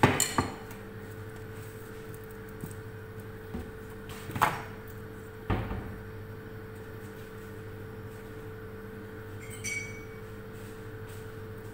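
Kitchen handling sounds: a few sharp knocks of dishes and a cupboard or counter, a duller thud about halfway, and a short ringing clink near the end, over a steady hum.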